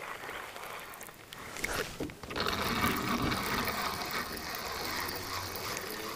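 Spinning reel being cranked to retrieve a lure: a steady mechanical whirr from about two seconds in, after a few clicks and knocks.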